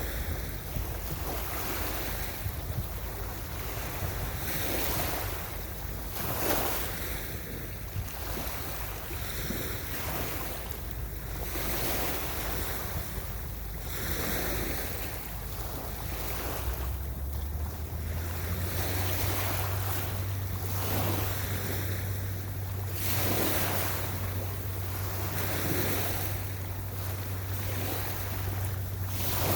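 Ocean surf: waves washing in and breaking on a beach in repeated swells a few seconds apart, with wind buffeting the microphone. A low steady hum joins a little past halfway.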